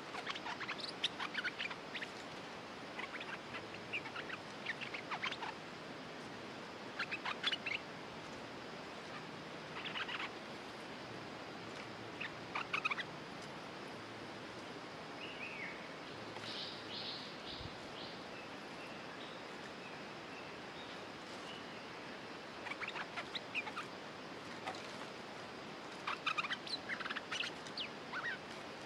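Bulbuls calling: short, quick chattering phrases repeated every few seconds, with a lull of several seconds in the middle. The calls come from a caged decoy bulbul and a territorial wild bulbul drawn in to perch above it.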